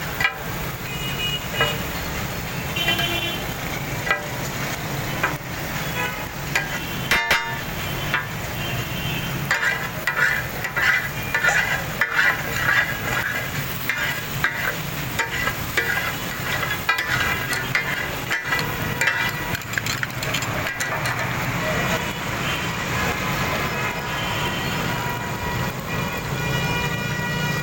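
Steel spatulas clanging and chopping on a flat iron griddle in quick, irregular strikes as taka tak of sheep brains and kidneys is fried, with sizzling underneath. Traffic and car horns sound alongside, most in the middle.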